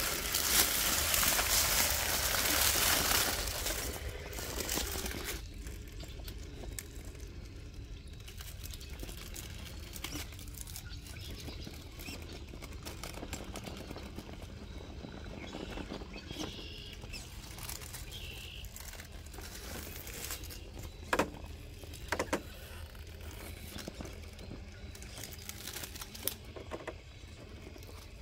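Tyres of a Traxxas TRX4 K10 1/10-scale RC crawler truck crunching through dry fallen leaves for the first few seconds, then quieter crawling over rocks with a few sharp knocks about two-thirds of the way through.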